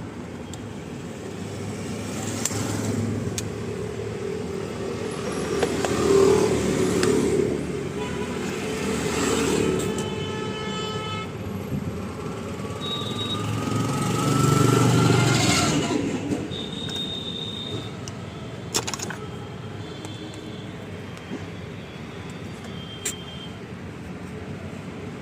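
Motor-vehicle noise: a running engine and traffic, swelling and fading twice, with scattered sharp clicks and a brief horn-like tone about ten seconds in.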